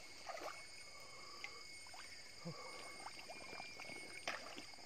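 Faint splashing and thrashing of a hooked hampala barb at the water's surface, as short scattered sloshes and clicks, the strongest about four seconds in. Insects drone steadily in the background.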